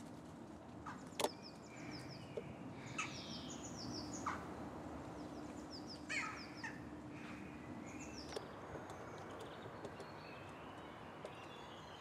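Faint bird calls: short, quick high chirps in small clusters scattered throughout, with a few sharp clicks and a faint low hum through the middle.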